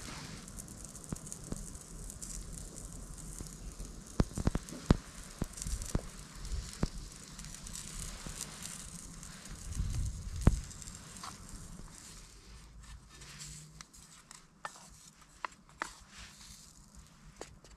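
Bacon and a pan of peppers and tomatoes sizzling over a wood campfire, with scattered knocks and clicks of the food and pan being handled. The sizzle thins out in the last few seconds.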